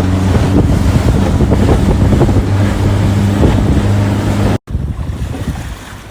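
A boat motor running steadily under way, with wind buffeting the microphone and water noise. About three-quarters of the way through, the sound cuts off abruptly and gives way to quieter wind and water without the engine hum.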